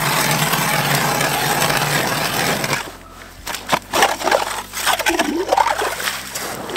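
Hand ice auger's spiral blades grinding steadily through lake ice, stopping abruptly about three seconds in. Then irregular crunching, scraping and sloshing as the auger is worked and lifted in the slushy, water-filled hole.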